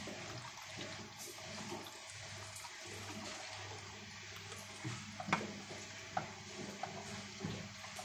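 Water sloshing in the drum of a toy Miele W1 washing machine as it turns socks during a rinse, over a low steady hum from the machine. A few sharp clicks come about five seconds in.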